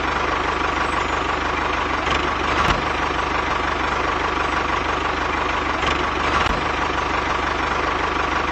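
Tractor engine running steadily with a fast, even chug, and a steady high tone above it.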